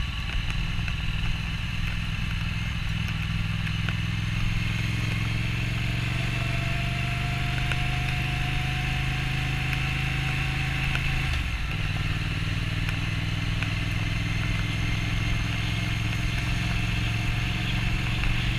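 Triumph Thruxton RS 1200cc parallel-twin engine running under way through its standard road-legal exhaust, heard from on the bike. The note climbs slowly and dips briefly about eleven seconds in, then runs on steadily.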